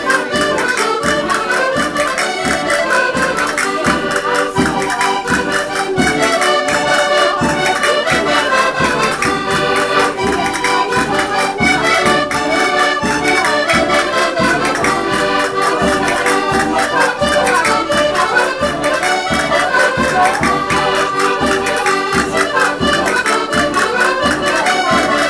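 Accordion-led Portuguese folk dance music with a steady, quick percussive beat.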